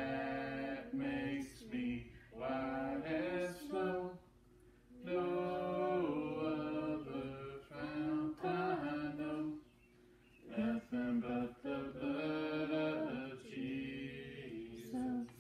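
Unaccompanied hymn singing by a few voices, in sung phrases broken by short pauses for breath.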